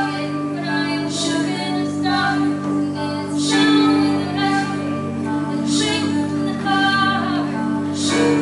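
A female voice singing a musical-theatre song over instrumental accompaniment, with low chord tones held underneath.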